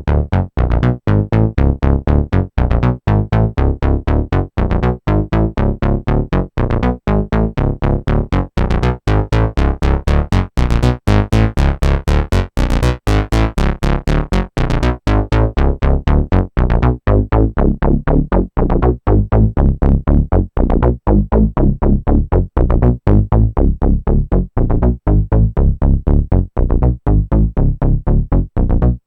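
Electronic bass-drum ringtone loop: deep, heavy bass drum hits and pitched synth bass repeating in a steady, fast beat.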